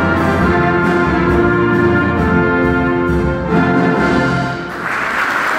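An orchestra led by violins plays sustained closing chords. The music stops about four and a half seconds in, and applause breaks out.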